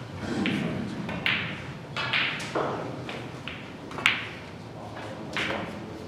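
Snooker balls being played: the cue tip strikes the cue ball, followed by a series of sharp clicks and knocks as balls hit one another and the cushions. The loudest knock comes about four seconds in.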